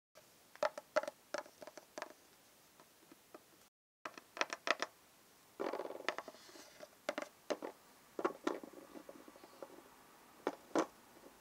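Small plastic toys being handled: scattered light clicks and taps as a toy pet figure is moved into a plastic toy bed. The sound breaks off completely for a moment just before four seconds in.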